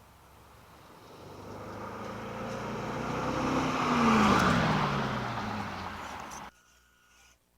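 A car driving past: its engine and tyre noise build up, peak about four seconds in, and the engine note drops in pitch as it goes by. The sound cuts off suddenly near the end.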